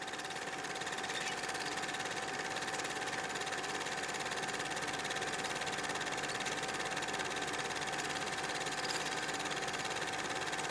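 Reel-to-reel film projector running: a steady, rapid mechanical clatter with a constant whirring tone, settling at full level within the first second.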